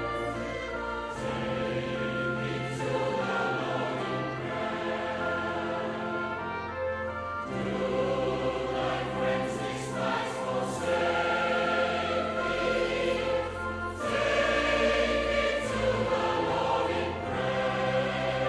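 Choir singing a slow piece in held chords, the harmony shifting every few seconds.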